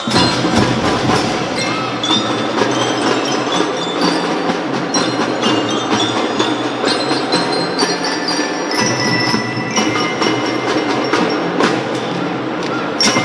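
Drum band playing a tune: bell lyras and mallet percussion ring out the melody over drum strokes.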